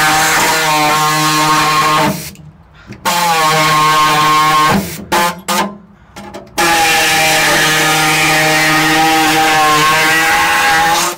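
Pneumatic reciprocating air saw cutting through thin, rust-rotted sheet-steel floor pan. It runs steadily in three long runs with a few short blips in between.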